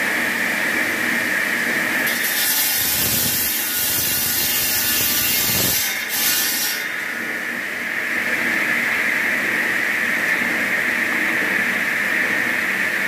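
A large water-cooled circular-saw stone-cutting machine runs with a steady high whine while cutting blocks of volcanic stone. From about two to seven seconds in, a harsher, hissing grind joins the whine, then it settles back to the steady whine.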